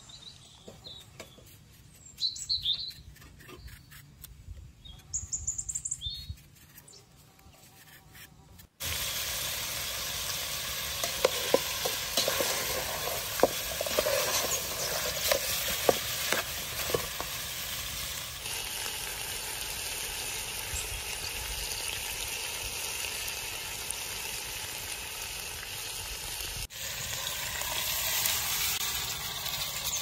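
A few bird chirps over quiet. About nine seconds in, loud sizzling starts suddenly: chunks of lamb frying in oil in a metal pot over a wood fire, with a spatula clicking and scraping against the pot as it is stirred.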